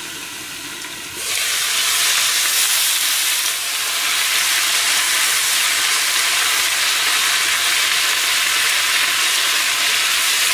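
Chopped cabbage sizzling in a frying pan as it steam-fries in the water it gives off, with a steady high hiss. About a second in, as the glass lid comes off the pan, the sizzle jumps much louder and brighter.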